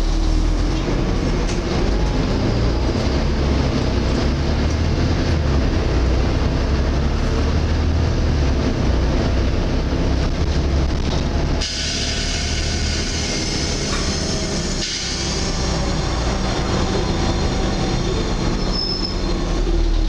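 Interior running noise of a Volvo B7TL double-decker bus under way: the six-cylinder diesel and its engine cooling fan making the whining, vacuum-cleaner-like "hoover" sound typical of this model. About twelve seconds in, the low rumble drops and a loud hissing rush lasts about three seconds.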